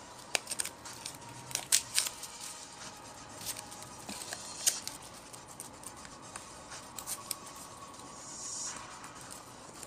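Paper wrapping being torn and peeled off plastic toy-rifle parts by hand: irregular crinkling, rustling and sharp snaps, with the loudest snaps about two seconds in.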